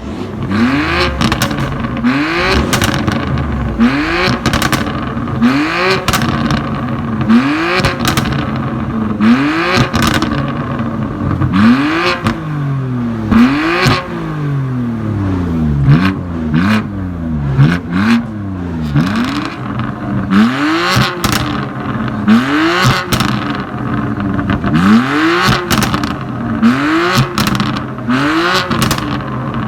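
BMW M2 Competition's twin-turbo inline-six, breathing through a Capristo exhaust, revved again and again. Each blip of the throttle rises in pitch and falls back, about one every one to two seconds, with pops and crackles from the exhaust on the overrun as the revs drop.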